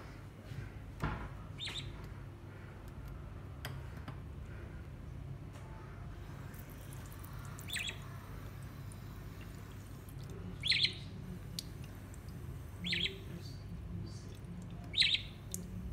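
Young budgerigar giving a handful of short, sharp chirps spaced a few seconds apart, over a steady low hum.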